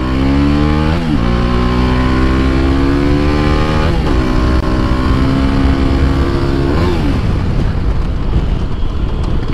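TVS Apache RR 310's single-cylinder engine accelerating hard through the gears. The pitch climbs and drops quickly at upshifts about one, four and seven seconds in. After the last shift the engine note is largely buried under wind noise.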